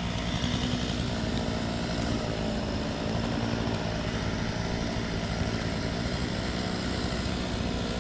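A motor running steadily: an even low hum under a constant rushing noise.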